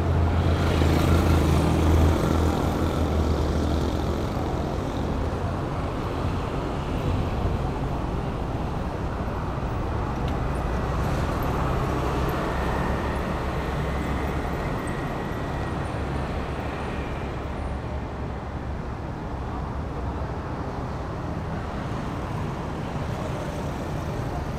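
City street traffic: a motor vehicle rumbles past close by in the first few seconds, then steady traffic noise from cars and motorcycles on the road.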